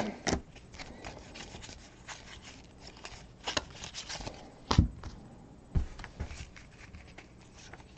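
Faint rustling and soft clicks of trading cards being slid off a stack and laid down on a table, with a few sharper taps in the middle.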